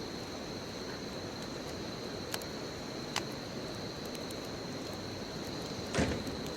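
Bonfire burning: a steady rush of flames with sparse crackles, two small ones around the middle and a louder pop near the end, over a thin steady high tone.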